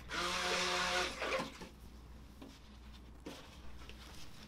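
Stick blender motor run in one short burst of about a second and a half, a steady hum with a whirring hiss, mixing cold process soap batter.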